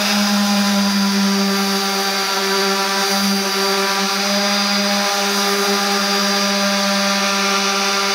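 Makita random orbital sander running steadily as it is worked across a wooden board, sanding away pencil guide marks to check the surface is flat. It makes a loud, even hum with a whine above it that holds one pitch throughout.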